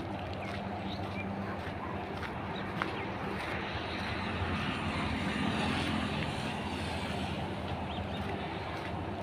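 A motor vehicle engine running steadily, with a rush of noise that swells and fades in the middle.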